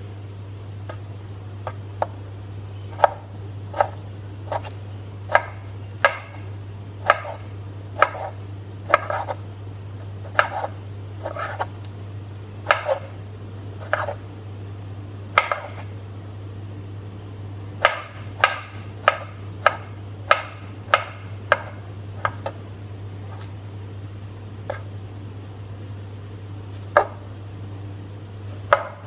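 A knife chopping on a cutting board in sharp, irregular strokes, about one or two a second. The chopping pauses briefly midway and thins out to a couple of strokes near the end, over a steady low hum.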